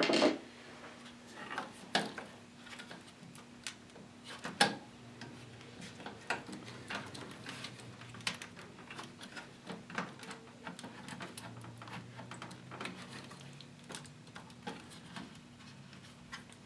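Scattered light clicks and taps of fingers against a graphics card, cables and the metal computer case while a hand feels for the PCIe slot's release latch, with one louder knock about four and a half seconds in. A faint steady hum runs underneath.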